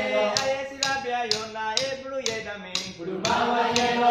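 Set of three dunun drums struck with sticks in a steady beat of about two strikes a second, under a man singing a call-and-response song in a West African language.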